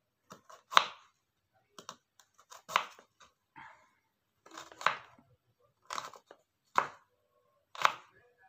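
Knife chopping fresh temulawak (Java turmeric) root into slices: sharp strokes about once a second, with lighter taps in between.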